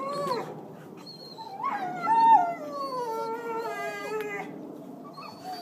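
Dog whining and howling in high, wavering cries: one long cry rises about a second and a half in, then slides slowly down in pitch and fades before the end.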